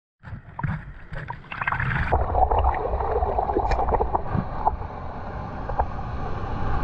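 Sea water sloshing and gurgling around a camera held at the surface as a wave builds and breaks, with many small splashes and bubbles popping against it.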